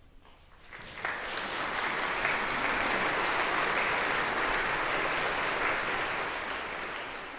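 Audience applause, starting about a second in just after the choir's singing has died away. It swells quickly, holds steady, then begins to fade near the end.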